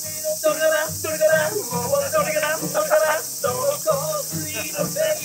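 A man singing a Japanese-language song to a strummed steel-string acoustic guitar.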